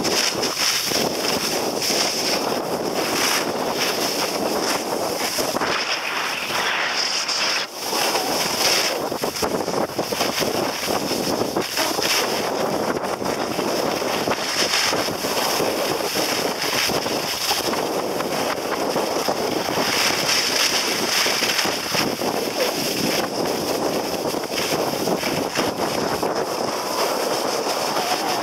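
Wind rushing over the microphone together with the hiss and scrape of sliding over packed snow on a ski slope, a steady rushing noise whose high hiss swells and eases every few seconds.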